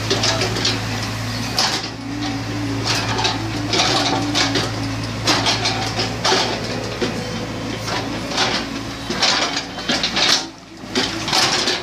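An engine running steadily at a low hum, with irregular clicking and clattering over it.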